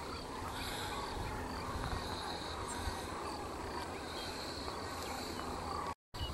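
A flock of sandhill cranes calling in flight, with many rolling, rattling calls overlapping in a continuous chorus. The sound cuts out for a moment near the end.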